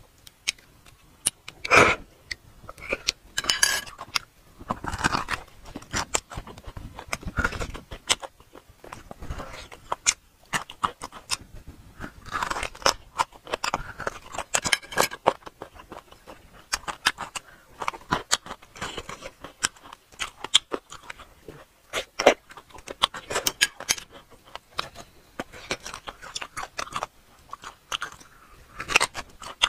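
Eating sounds from braised bone marrow and the meat around it: chewing, with an irregular run of sharp wet mouth smacks and crunches as the marrow is bitten and sucked from the cut bone end.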